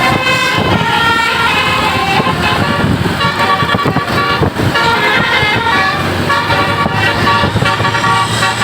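Bus telolet 'basuri' multi-tone air horn playing a tune: loud, sustained horn notes switching rapidly from one pitch to the next, over the low rumble of the bus.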